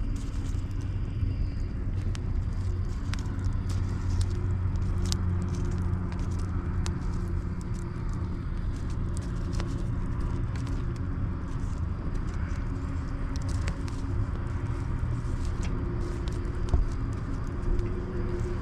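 An engine running at a steady speed: an even low drone, with faint scattered clicks and rattles over it.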